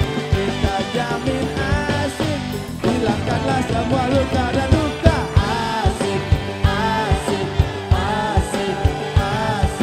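Upbeat band music with a woman singing over a steady beat.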